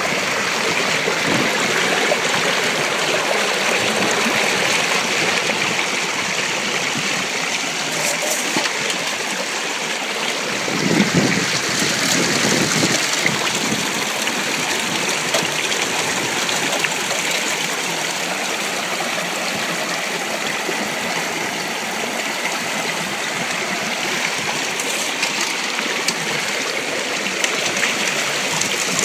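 Stream water rushing steadily through a plastic gold sluice box and spilling off its end. A brief louder rumble about eleven seconds in.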